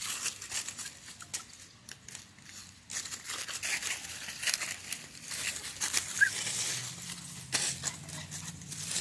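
Dry fallen leaves and grass crunching and rustling underfoot in irregular bursts as a small puppy scampers through them.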